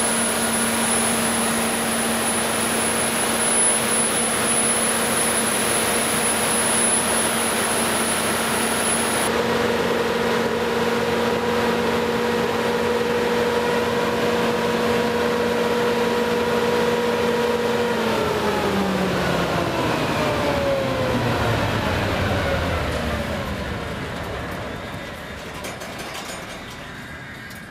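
300 kW Generac standby diesel generator set running at steady speed, with a high whine that stops about a third of the way in. About two-thirds in the engine is shut down: its hum falls steadily in pitch as it spins down and fades away.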